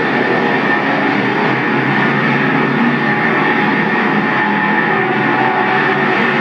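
Several dirt-track street stock race cars running hard, a steady loud drone of engines with no let-up. It sounds thin, played back from an old videotape through a TV speaker.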